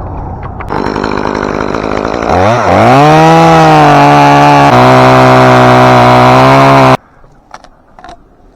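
Chainsaw running low, then opened up to full throttle about two seconds in with a quick rise in pitch. Its pitch drops a step near five seconds as it cuts into the spruce wood. The sound cuts off suddenly near the end.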